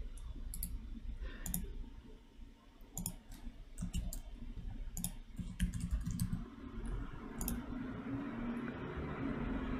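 Irregular, scattered clicks of a computer mouse and keyboard as a channel is created and named in Discord, over a low background hum; a faint steady hiss comes in about two-thirds of the way through.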